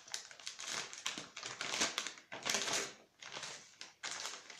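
White plastic mailing bag rustling and crinkling as it is handled and opened: a quick run of crackles with louder swells about two and two and a half seconds in.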